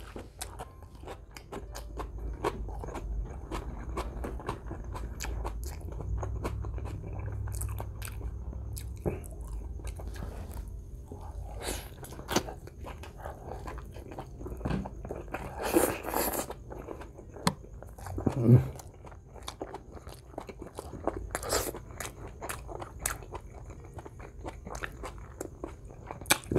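Close-miked wet chewing and lip-smacking as a mouthful of menudo tripe soup scooped up with a tortilla is eaten, with many small clicks of the mouth. There is a louder noisy burst about sixteen seconds in and a short low voiced sound a couple of seconds later.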